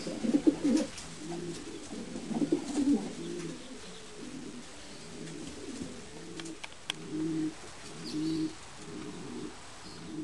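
Racing pigeons cooing in their loft, several low, repeated coos overlapping one after another, with a few faint sharp clicks near the middle.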